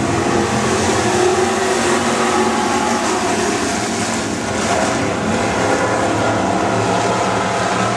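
A pack of stock cars racing on a dirt oval, many engines running hard at once. Loud and steady, with several engine pitches wavering over one another as the cars go through the turn.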